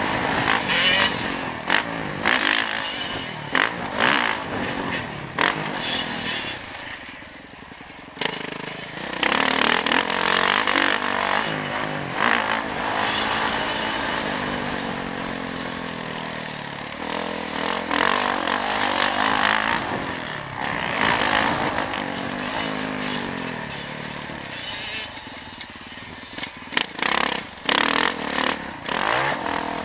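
Dirt bike engine revving up and falling back again and again as the rider accelerates and backs off along a rough trail. Wind noise rushes and thumps on the body-mounted camera's microphone.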